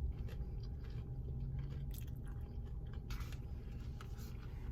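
A person chewing a mouthful of food close to the microphone, with a few soft crunches and wet mouth clicks.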